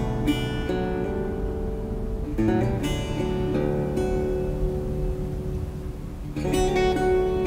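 Background music: an acoustic guitar strumming chords, with fresh strums a few times across the stretch.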